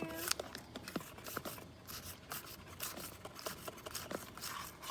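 A twig scraping and poking inside a plastic funnel and bottle neck, pushing baking soda through, in irregular short scratches and rubs.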